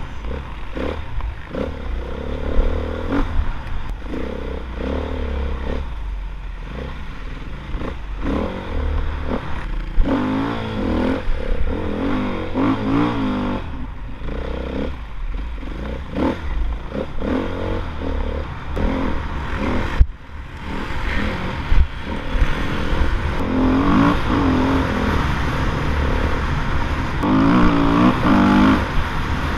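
Off-road motorcycle engine heard from the rider's helmet, revving hard and easing off again and again as it is ridden over a dirt track, with gear changes and the throttle chopped for corners. A heavy low wind rumble on the microphone runs under it, with occasional knocks from bumps, the sharpest about 20 seconds in.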